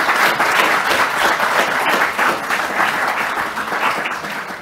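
Audience applauding, many hands clapping together in a dense patter that dies away near the end.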